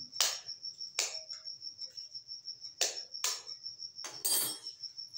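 An insect chirping in a steady high-pitched pulsing trill, with about half a dozen sharp clicks and knocks over it.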